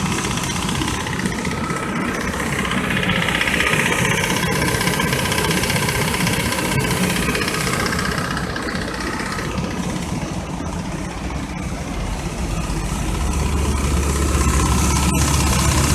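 Chevy S10 pickup's engine idling steadily with the A/C on, its compressor clutch staying engaged rather than cycling on and off now that the refrigerant has been recharged. A deeper low hum comes in near the end.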